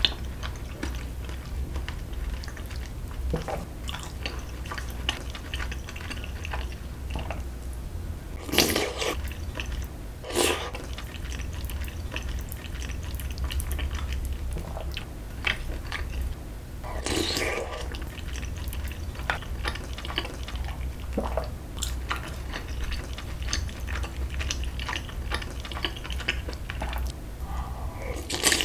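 Close-up eating sounds: spoonfuls of rice soaked in ramyeon broth slurped and chewed, with a few louder wet slurps spaced through and another near the end, and light clicks of a metal spoon and chopsticks.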